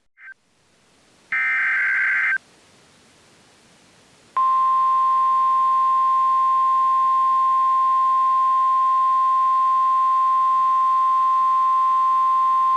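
NOAA Weather Radio alert signals: a one-second burst of warbling digital data tones, then the steady 1050 Hz warning alarm tone, a single loud pitch held for about nine seconds to signal that an urgent warning message follows.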